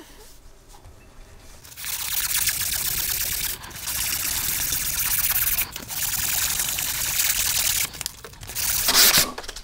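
220-grit sandpaper rubbed along a steel shaft to scrub off surface corrosion, in three long strokes of about two seconds each, with a shorter scrub near the end.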